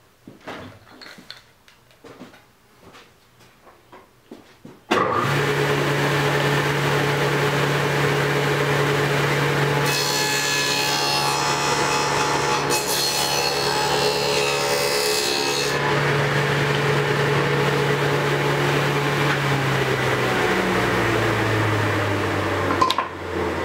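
Table saw with a dado stack switched on about five seconds in and running with a steady hum. For several seconds in the middle it cuts harshly as the board is fed through on the second pass of a 7/8-inch groove. Near the end it is switched off and its pitch falls as the blades spin down.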